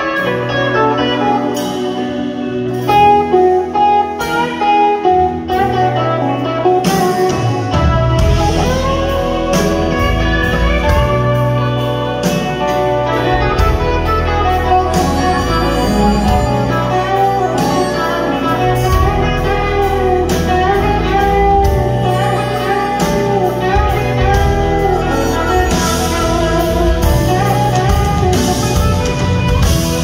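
Live blues band playing: electric guitar and harmonica over keyboard, with the drums and bass coming in fully about eight seconds in.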